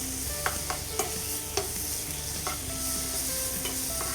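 Carrots and beans stir-frying in a pan with coriander pesto: a steady sizzle, with a utensil knocking against the pan several times as they are stirred.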